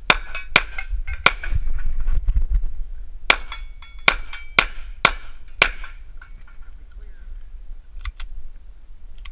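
Pistol shots heard close up from the shooter's position: three quick shots, a pause of about two seconds, then a string of five more about half a second apart. A low rumble sits under the first couple of seconds, and two faint clicks come near the end.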